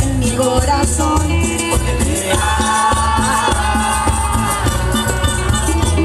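Cumbia band playing an instrumental passage over a steady bass and percussion beat, with a held melody line coming in about two seconds in.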